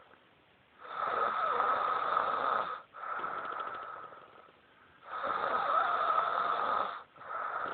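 Snoring in a slow, regular breathing rhythm: two long, loud snores about four seconds apart, each followed by a softer breath that fades away.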